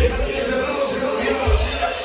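Cumbia dance music played loud over a sonido sound system, with a held melody line and heavy bass beats.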